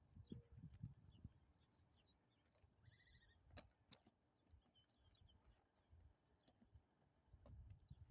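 Near silence: faint scattered low knocks and clicks, with a short high warbling tone about three seconds in.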